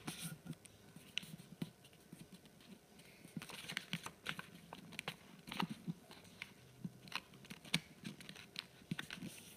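A sheet of paper being folded and creased by hand on a glass tabletop: faint, irregular rustles, taps and scrapes as fingers press and run along the folds, busier after about three seconds.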